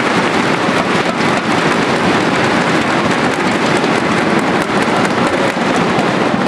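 Crowd beating inflatable thunder sticks together: a loud, steady, dense clatter of many quick claps.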